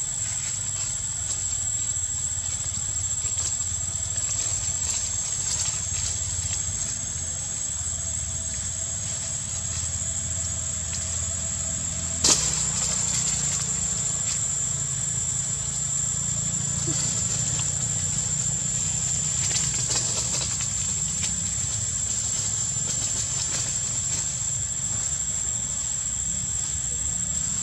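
Steady outdoor background noise: a low rumble under a thin, steady high whine, with one sharp click about twelve seconds in.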